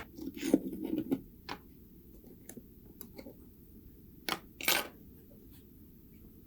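Small hard parts of a diecast model car clicking and clinking as they are handled: a quick clatter in the first second, scattered light clicks, and two louder clinks about four and a half seconds in.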